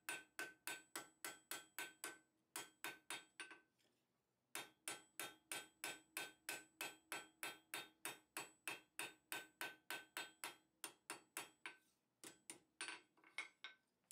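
Light, quick ball-peen hammer taps on small hot steel tongs on an anvil, about four a second, each tap ringing briefly; the runs break for about a second near 4 s and die out into a few scattered taps near the end. It is light adjusting blows that line up the two riveted halves of the tongs, not heavy forging.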